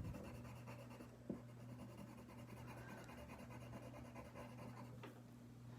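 Faint scratching of colouring on paper, over a low steady electrical hum, with a single small click about a second in.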